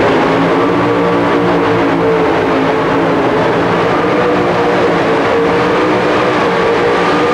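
Super modified two-wheel-drive pulling truck's 567-cubic-inch engine held at full throttle, running loud at a nearly steady high pitch as the truck drags the weight-transfer sled down the track.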